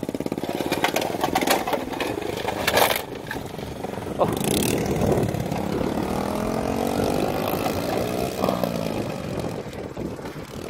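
Honda C90's small single-cylinder four-stroke engine running with a fast, even pulse, then rising and falling in pitch as it is worked. A few sharp knocks come about one to three seconds in.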